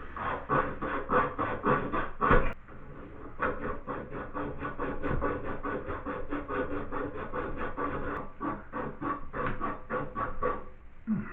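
Rhythmic hand rubbing or scrubbing strokes, about four a second, with a short break near the third second.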